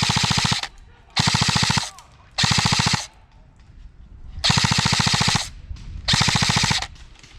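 Airsoft gun firing on full auto in repeated short bursts. One burst ends shortly after the start, then four more follow, each under a second long, with brief pauses between.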